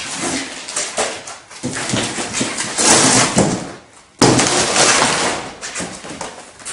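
Cardboard and foam packaging rustling, crinkling and scraping as a wrapped road bike is handled, with a sudden loud burst of crackling about four seconds in.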